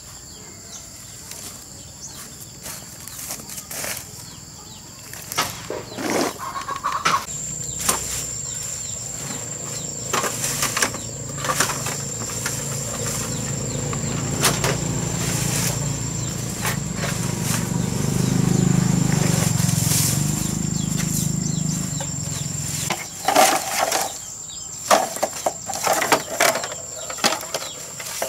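Leaves and stems rustling and cracking as banana-grove undergrowth is pushed through and hacked with a machete-like blade, in many short sharp strokes. A steady high whine runs throughout. A low hum builds from about seven seconds in and stops suddenly about two thirds of the way through.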